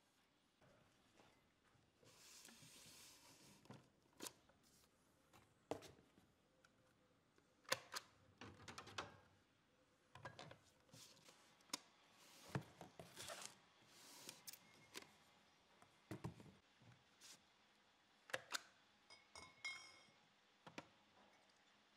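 Faint, scattered clicks, light knocks and paper rustling from hand-labelling beer bottles at a wooden labelling jig.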